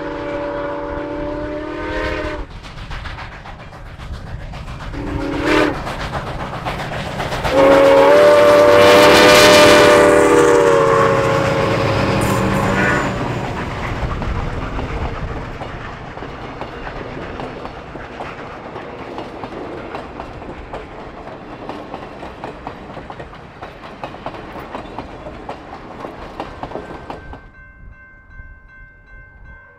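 Chime steam whistle of 2-8-2 Mikado steam locomotive #4960: the end of a long blast, a short blast, then a long, loudest blast as the locomotive draws close. Then the passenger cars roll past with the clicking of wheels over rail joints, fading away.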